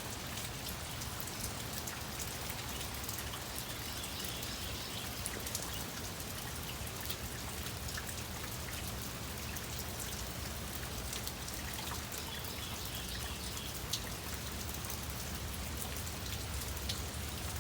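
Rain falling with many small drop ticks, over a steady low rumble of wind on the microphone.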